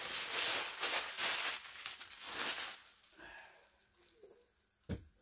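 Bubble wrap and plastic packaging crinkling and rustling as they are handled and pulled away, for about the first two and a half seconds. Then quieter handling, with one sharp knock near the end.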